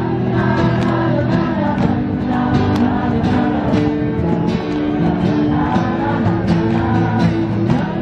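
Acoustic street band playing a song: strummed acoustic guitars and cajon strokes under singing through a microphone.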